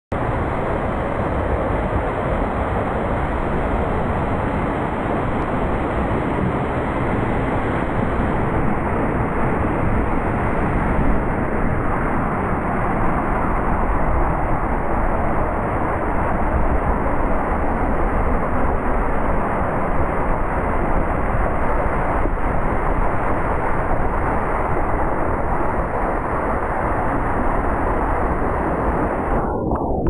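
Waterfall pouring onto rocks: a steady, full rush of falling and splashing water.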